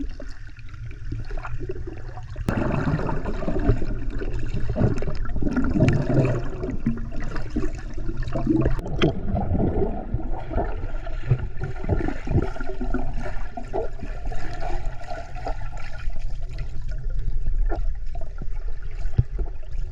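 Water gurgling and sloshing over a steady low rumble; it gets louder and busier about two and a half seconds in.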